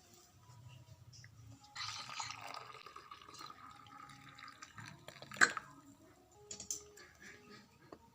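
Liquid being poured for about a second, then small handling knocks and one sharp click or knock, the loudest sound, about five seconds in.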